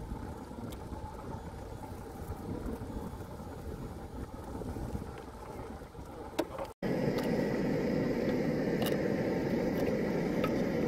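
Wind and water noise on a small boat on the water. After a cut about two-thirds of the way in, a steady hiss from a portable gas stove's burner under a pot of ramen broth.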